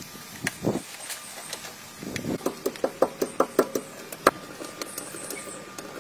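Hand-tool work on the underside of an old car: sharp metallic knocks, single ones at first, then a quick run of about five a second in the middle, and one loud knock near the end.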